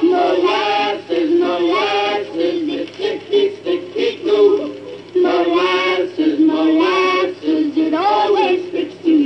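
A 1950 pop record playing from a 45 rpm single on a portable turntable: a woman singing a melody, with little deep bass.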